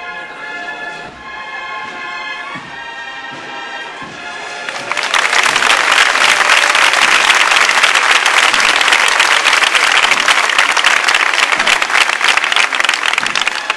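A brass band plays a processional march. About five seconds in, the crowd breaks into loud applause that drowns the band and dies away near the end.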